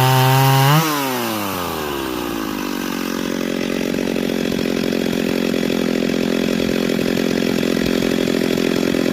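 Stihl 028WB two-stroke chainsaw engine, fitted with a Meteor 46 mm cylinder, running at high revs. About a second in, the throttle is let go: the engine winds down over the next two seconds and settles into a steady idle.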